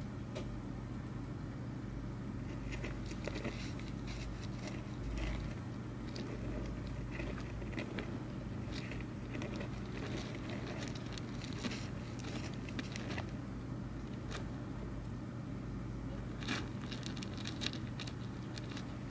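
Soft, scattered crackling and rustling of loose soil as a common rain frog burrows into it, in small clusters of clicks, over a steady low hum.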